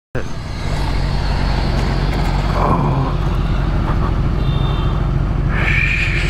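Sport motorcycle engine running steadily under wind and road noise, with freeway traffic going past.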